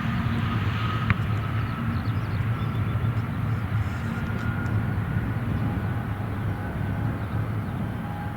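Jet airliner engines heard from the airfield: a steady low rumble with a faint thin whine that rises slowly in pitch.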